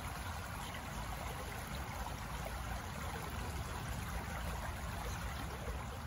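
Shallow creek running over rocks: a steady rush of flowing water.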